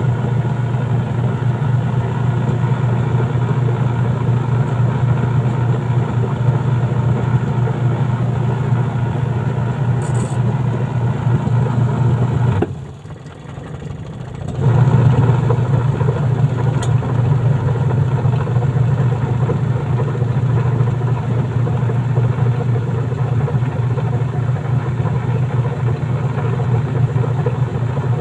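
Newly installed washing machine wash motor running with a steady hum. It stops for about two seconds roughly halfway through, then starts up again, as in the run-pause-run cycle of a wash timer.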